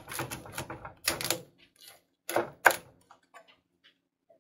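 Chef's knife chopping broccoli on a bamboo cutting board: a quick run of knocks at first, then a few sharper single chops, the loudest about two and a half seconds in, trailing off into faint light taps.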